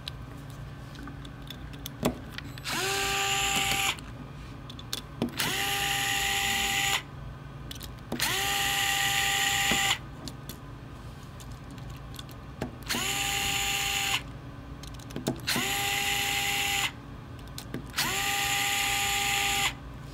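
DeWalt cordless power screwdriver backing out the mounting screws on 3D-printer extruder blocks: six short runs of motor whine, each rising briefly in pitch as it spins up and then holding steady. Small clicks and taps come between the runs as the bit is set on each screw.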